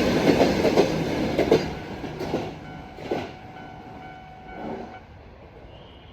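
Train passing over a level crossing, wheels clacking over rail joints. It is loud at first and dies away after about two seconds, with one more knock a second later.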